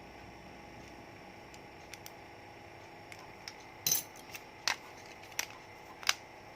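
A handful of sharp clicks and clinks of small hard objects being handled on a workbench, spaced unevenly, the loudest about four seconds in, over a steady faint hum.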